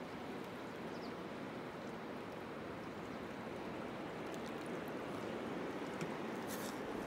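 River current flowing over shallow, rippled water: a steady, even wash of water noise, with a few faint clicks near the end.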